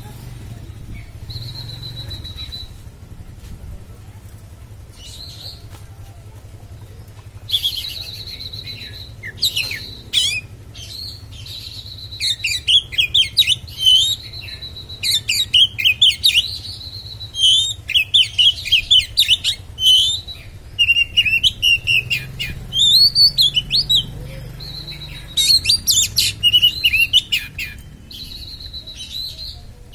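Oriental magpie-robin singing in the rapid, sharp, jumbled 'konslet' style. It opens with a few high whistled notes. After a short pause, from about a quarter of the way in, it breaks into loud, fast runs of sharp chirps and trills separated by brief gaps.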